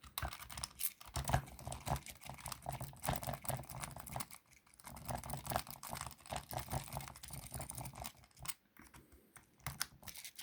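Jiggler key being worked in and out of a wafer lock: rapid light metallic clicking and rattling of key against the wafers, in runs with short pauses.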